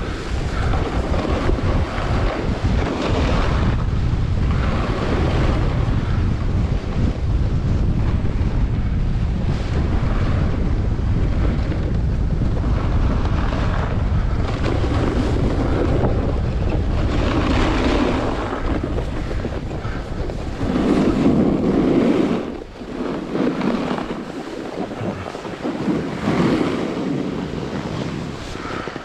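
Wind buffeting the microphone of a camera on a moving snowboarder, mixed with the snowboard sliding over packed snow, its edge scraping in several louder surges over the second half.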